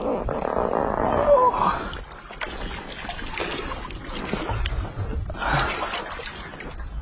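Water splashing as a large hooked catfish thrashes at the surface, loudest in the first two seconds and again in a burst near the end.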